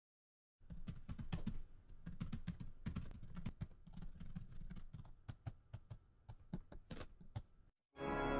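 Typing on a keyboard: a quick, uneven run of keystroke clicks, fading toward the end. The clicks stop shortly before the end and steady music starts.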